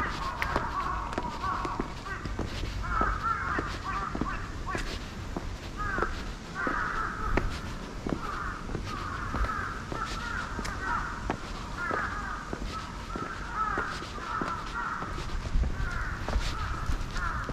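Birds calling over and over in short, chattering bursts, with light footsteps on stone steps beneath.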